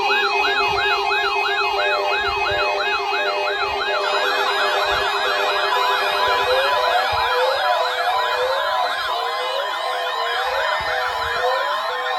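Weather alert radio receivers sounding their siren-like alarms, set off by the NOAA Weather Radio weekly warning-alarm test: a fast, repeating rising-and-falling wail, about three sweeps a second, over a steady low buzzing tone. A second alarm joins about four seconds in and more overlapping sweeps about halfway through, while the low tone stops.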